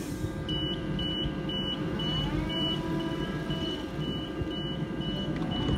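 Door-closing warning beeps of a Waratah double-deck electric train: short high beeps, about two a second, as the doors shut. Under them is the steady low rumble of the stationary train's equipment.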